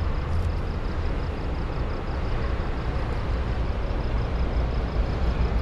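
Steady low rumble of road traffic on an elevated highway, with no distinct events.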